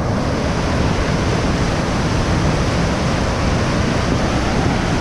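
Whitewater rapids of a waterfall rushing over boulders: a loud, steady, even rush of water.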